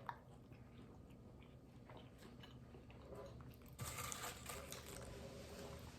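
Close-up mouth sounds of someone eating a buffalo chicken quesadilla: soft chewing with small wet clicks, turning into louder crunchy biting and chewing about four seconds in.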